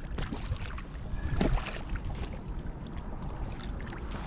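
Water splashing and sloshing against a kayak's hull as a large black drum thrashes at the surface and is netted, with a few light knocks and a steady low wind rumble on the microphone; the splashing is loudest about a second and a half in.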